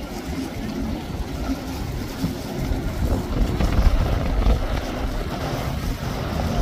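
Motorboat engine running on the water, a steady low rumble, with wind buffeting the microphone.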